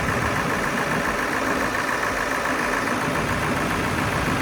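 2000 Ford Excursion's 7.3 Powerstroke V8 turbo-diesel idling steadily, running again now that a PATS delete on its PCM has cured a crank-but-no-start fault.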